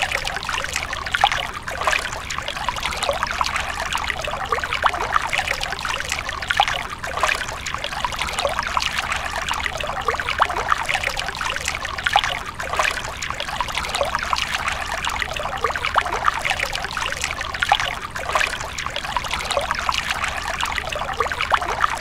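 A thin stream of water from a mini water pump's clear plastic tube falling steadily into a small shallow pond, a continuous trickling splash.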